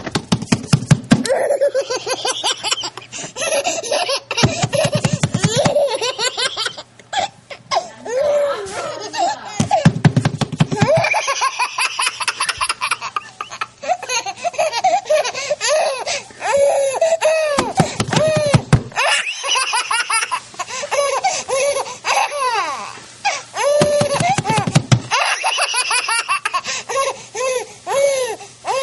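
Baby's deep belly laughter, coming in long fits of rapid, high-pitched laughs, with short breaks between fits.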